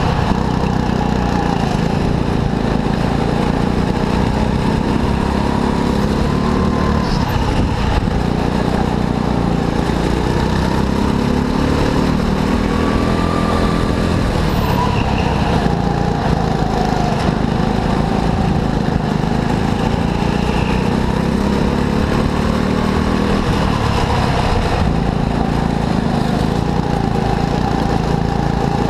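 Go-kart engine running continuously under load, its pitch rising and falling over and over as it revs up and eases off.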